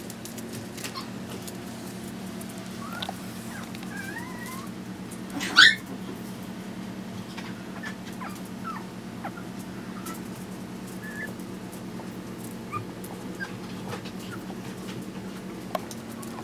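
Five-week-old Chihuahua puppies whimpering in short, high squeaks, with one louder rising squeal about five and a half seconds in, over a steady low hum.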